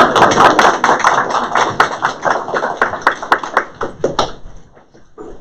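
Applause from a small group of people, dense at first, then thinning out and stopping about four seconds in.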